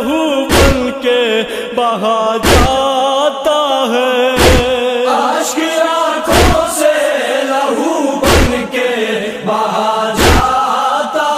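Male voice chanting a noha, a Shia lament, in long wavering melodic lines, over a deep thump about every two seconds that keeps the beat.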